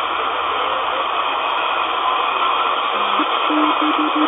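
Shortwave band noise, a steady hiss, from a DSP SDR receiver (a Malahit clone) in lower sideband as it is tuned across the 40-meter amateur band. About three seconds in, a low steady tone comes in, steps up in pitch, then breaks into short beeps near the end.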